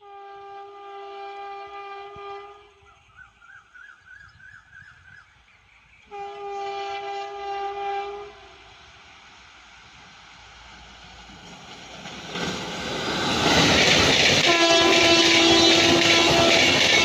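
Horn of a WAP-4 electric locomotive sounding three blasts of about two seconds each as the train comes up, the third over the loud rumble and rail clatter of the train passing close by.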